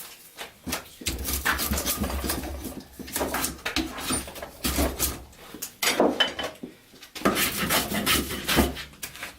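Drawknife shaving a clamped piece of green oak, a series of long scraping strokes with short pauses between them.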